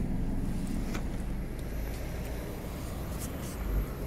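Scania CityWide natural-gas (GNV) bus idling, a steady low rumble heard from outside the bus, with a few light clicks over it.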